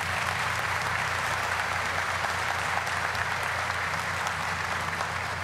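Audience applauding, a steady clapping that tapers off near the end.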